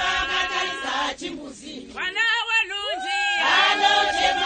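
A group of women and men singing and chanting together while clapping along, with one voice holding a long high note from about three seconds in.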